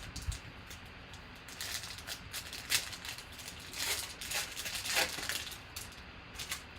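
Trading card pack being handled: a run of brief crinkles and rustles of the wrapper and cards, clustered from about a second and a half to six and a half seconds in.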